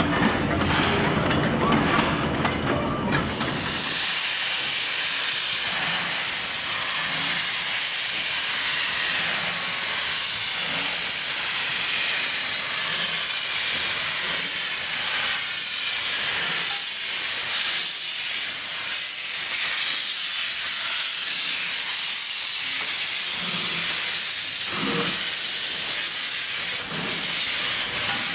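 Narrow-gauge steam locomotive with a low rumble of the moving train for the first few seconds. Then, after an abrupt change, a loud steady hiss of steam venting around the locomotive's wheels and running gear, which holds to the end.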